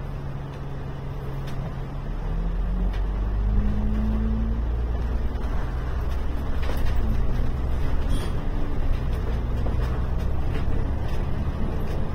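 Alexander Dennis Enviro 500 MMC double-decker bus heard from inside the cabin, engine and drivetrain pulling the bus along. The engine note rises as it accelerates about three to four seconds in, then runs steadily at road speed with a few small rattles and knocks.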